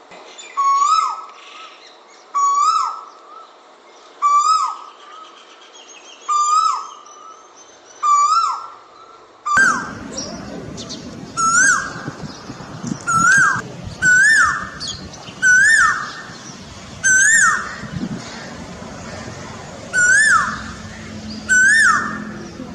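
Asian koel calling: a shrill two-part note that rises then drops, repeated about every one and a half to two seconds, a dozen times over.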